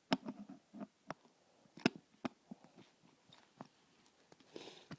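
Scattered small clicks and knocks of a door closer and its arm being handled as the arm is fitted onto the closer body, with a short rustle near the end.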